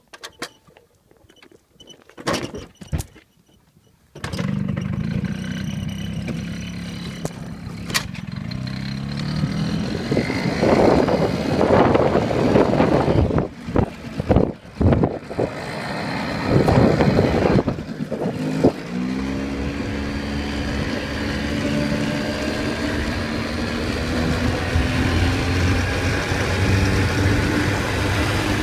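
Yamaha motorbike engine restarting after stalling, catching about four seconds in after a few clicks, then running and revving with wind buffeting the microphone. For the last ten seconds it accelerates away with a steadily rising note.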